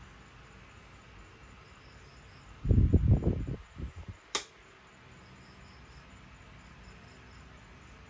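A flurry of low knocks and handling bumps as a hand works the small speaker selector switch box, followed a moment later by one sharp click of the switch being thrown.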